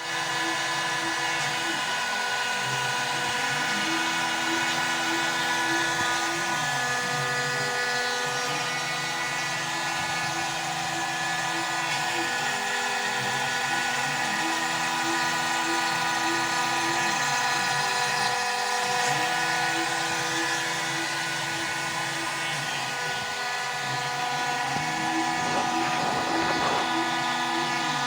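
Home-built CNC router running: the spindle motor whines steadily at high speed, while the stepper motors drive the axes back and forth, their lower whine rising and falling in a pattern that repeats about every four to five seconds.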